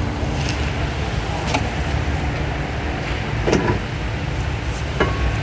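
Steady low workshop rumble with a few short, sharp clicks and clinks from handling tools and brake parts, about four over the stretch.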